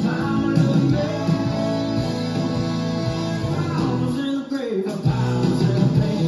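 Upbeat workout music with guitar and singing. The bass drops out briefly about four and a half seconds in, then comes back.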